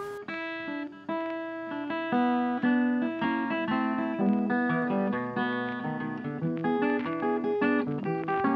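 Background music: an acoustic guitar picking a melody and chords at a steady pace.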